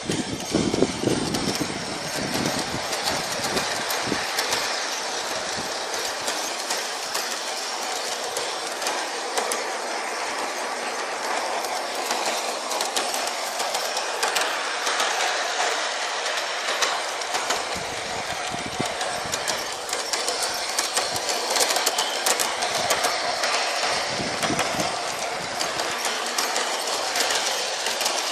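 Bachmann Big Hauler 4-6-0 large-scale model train running on garden railway track: a steady rattling clatter of wheels and running gear, with many small clicks as the wheels go over the rail.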